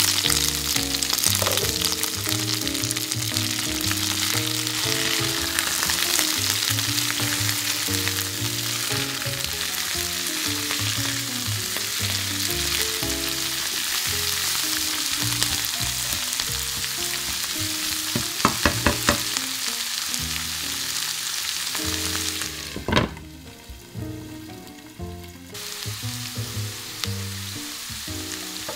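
Potato sticks and sliced onion frying in oil in a non-stick pan, a steady sizzle. A few sharp clicks come a little past the middle, likely the metal utensil used for stirring striking the pan. Near the end the sizzle cuts out for about two seconds.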